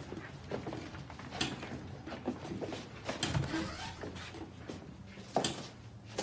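An interior door being pushed open and handled, heard as a few sharp clicks and knocks spaced about a second and a half apart, with a dull thump a little past halfway.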